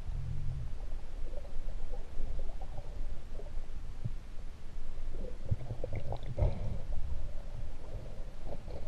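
Muffled underwater rumble of shallow sea water moving around a camera held just below the surface, with a few knocks and crackles a little past the middle.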